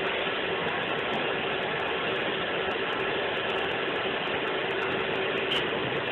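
Newly repaired industrial conveyor belt running steadily: a continuous mechanical rattle with a steady hum and a few light clicks.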